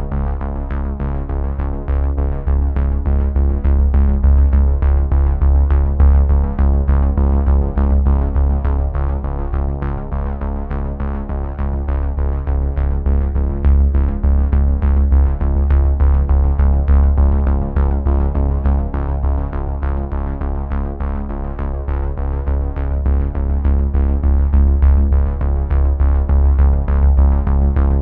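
Electronic music with a steady beat and a heavy bass line.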